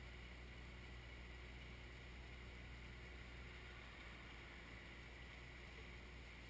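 Faint, steady low hum of the Kioti 3054 tractor's diesel engine running as its backhoe boom is moved, heard from a distance.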